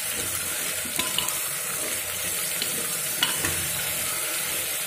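Potato cubes and chickpeas sizzling in hot mustard oil in a pressure cooker while a steel spoon stirs them in. There is a steady frying hiss, with a few sharp clicks of the spoon against the pot.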